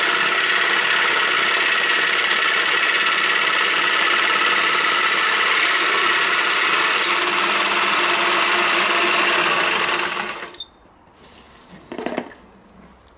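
Bosch jigsaw with an acrylic-cutting (PMMA) blade sawing through an acrylic sheet: a loud, steady machine noise that cuts off suddenly about ten and a half seconds in. A brief clatter follows shortly after.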